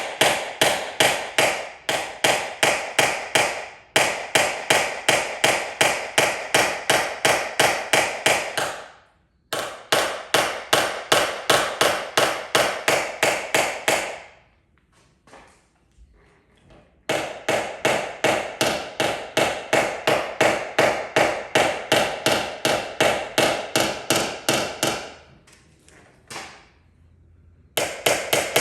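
Rapid, even tapping of a hammer and knockdown tool on a vehicle's sheet-metal panel, about five taps a second in long runs with a few short pauses: paintless dent repair tap-down, knocking down high spots left by glue pulling.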